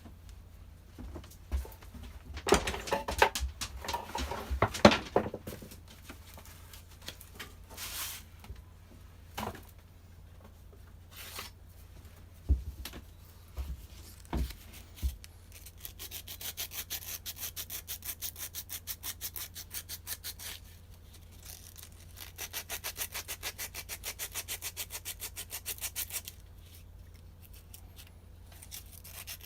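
Clattering and a few sharp knocks as small metal parts are handled, then sandpaper rubbing rusted clutch parts of a Stihl FS240 brush cutter in quick, even back-and-forth strokes, cleaning off the rust. The sanding starts about halfway through and stops a few seconds before the end.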